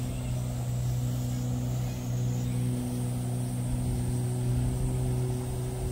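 A steady low engine hum that holds one pitch without revving.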